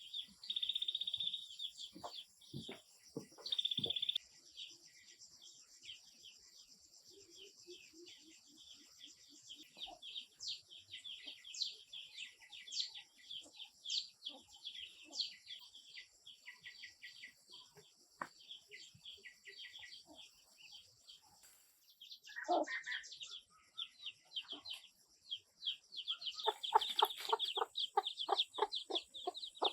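Small birds chirping busily throughout, with chickens clucking in a quick, even series of about four calls a second near the end.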